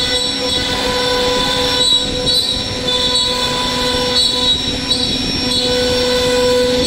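CNC router spindle running with a steady whine of several tones while its bit cuts along a wooden plank, with a rough cutting noise underneath.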